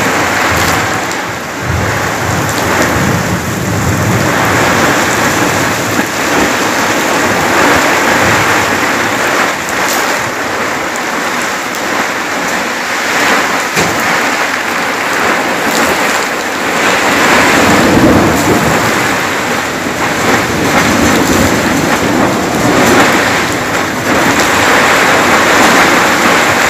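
Heavy rain pouring down in a thunderstorm: a loud, dense hiss that swells and eases, with low rumbling in the first few seconds and again in the second half.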